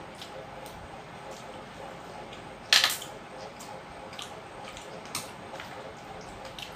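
Eating by hand: fingers working rice and curry on steel plates, with soft wet squishing and small scattered clicks over faint steady background noise. One louder, sharp clatter a little under three seconds in, and a smaller click a couple of seconds later.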